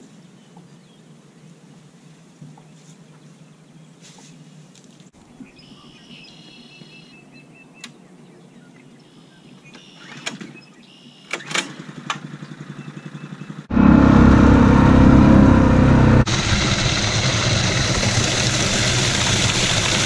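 Small gasoline-engine water pump being started with a few sharp pulls, then running with a steady beat that jumps to very loud about two-thirds through. In the last few seconds, water gushes hard into a plastic stock tank.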